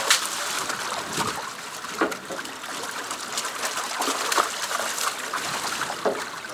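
Water splashing and dripping as a long-handled landing net scoops a large fish out of a shallow netted holding pen and is dipped back in, with fish splashing in the pen; short splashes come over a steady trickle.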